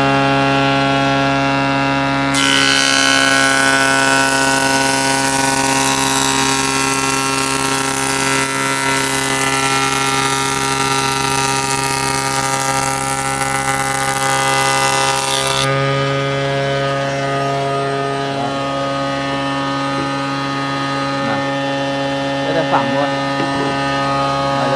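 Nishino combination woodworking machine's jointer running with a steady hum. From about two seconds in, a board is fed across the planer knives, which cut it with a loud hiss that stops sharply about sixteen seconds in, leaving the machine running unloaded. A few light knocks come near the end.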